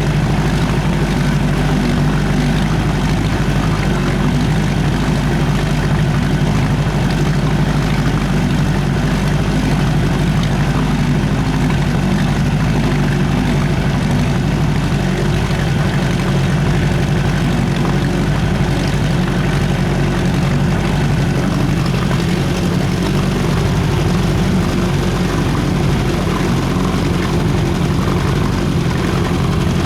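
1970 Evinrude Sportster 25 hp two-cylinder two-stroke outboard motor running steadily under way, its exhaust baffle gasket leaking badly.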